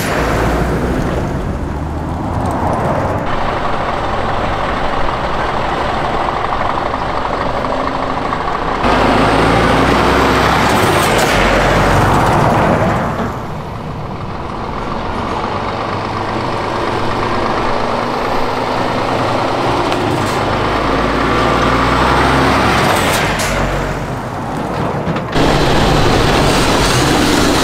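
Heavy military trucks and eight-wheeled armoured personnel carriers driving past one after another, diesel engines running and tyres rumbling on the road. Among them are a Scania V8 tractor hauling a low-loader trailer and a Rheinmetall MAN truck leading Piranha 5 APCs. The sound changes abruptly a few times, about 9, 13 and 25 seconds in.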